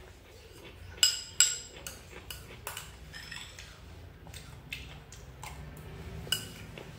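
Spoon clinking and scraping against a small porcelain bowl while eating from it: two sharp, ringing clinks about a second in, then lighter taps and scrapes.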